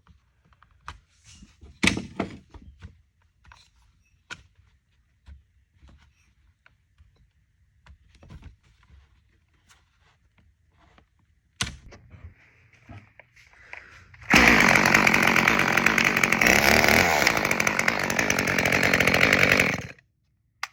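Echo CS-355T top-handle chainsaw's small two-stroke engine running for about five seconds, then cutting off suddenly. Before it, a series of light clicks and knocks from the saw being handled.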